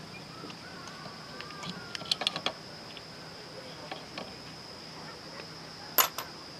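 Steady high-pitched insect drone, typical of crickets, with a quick run of light metallic clicks about two seconds in and two more near the end, from motorbike clutch parts being handled.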